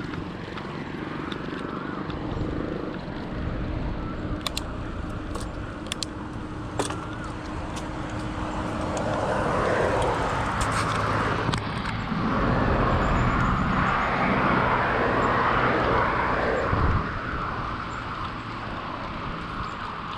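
Road and traffic noise heard while cycling: a steady rumble that swells for several seconds past the middle as a motor vehicle goes by, then eases near the end. A few light clicks come about five seconds in.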